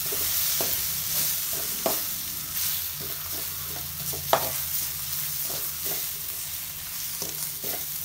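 A metal spoon stirs and scrapes a thick onion-and-tomato spice masala in a metal wok, over a steady sizzle of frying. It knocks against the pan again and again, the sharpest clink about four seconds in.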